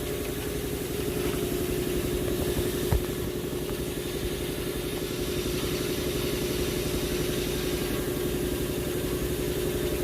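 An engine idling steadily, with one sharp click about three seconds in.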